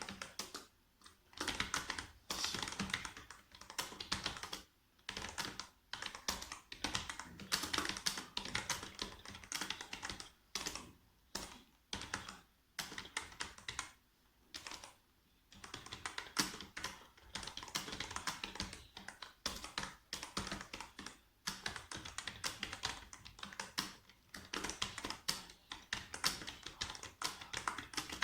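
Fast touch typing on a computer keyboard: rapid runs of key clicks broken by short pauses.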